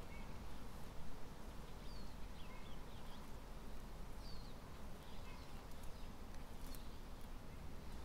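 Quiet forest ambience: scattered short bird chirps over a steady low background noise, with a few faint clicks near the end.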